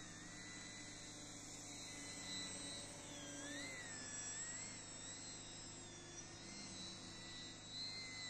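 Faint high whine of the electric motors and propellers on radio-controlled foam model Hurricane fighters in flight. The pitch rises and falls every second or so as the planes throttle, turn and pass.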